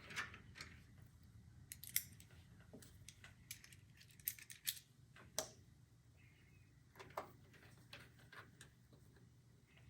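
Faint, irregular small clicks and ticks of a screwdriver turning motherboard screws down into the case standoffs.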